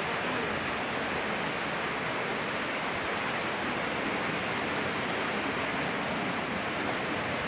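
Steady rush of flowing water, an even hiss that holds without change.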